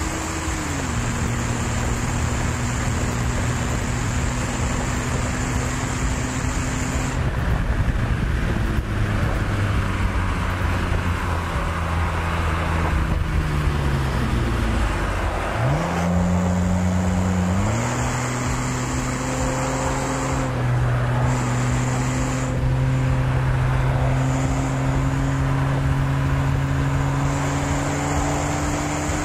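BMW 330Ci's 3.0-litre straight-six engine running hard on a race track, with wind noise from the open top. The engine pitch falls slowly around the middle as the car slows, then jumps up twice in quick succession and climbs steadily again.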